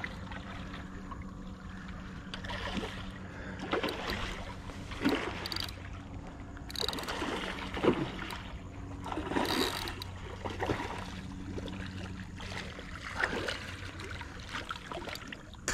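Water splashing in irregular bursts as a hooked snook thrashes at the surface close in, over a steady low hum.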